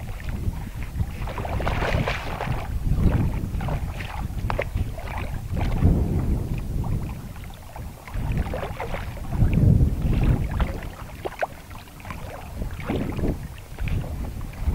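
Gusty wind buffeting the microphone: a low rumble that surges and drops, with scattered short clicks over it.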